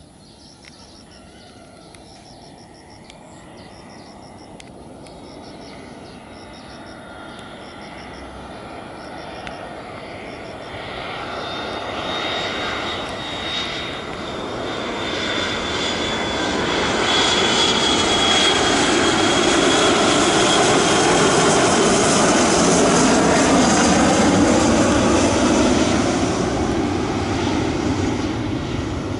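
McDonnell Douglas MD-80/83 airliner on landing approach, its two rear-mounted Pratt & Whitney JT8D turbofans swelling from a distant rumble to loud over about seventeen seconds. A high whine slides down in pitch as the jet comes past, and the sound eases off a little near the end.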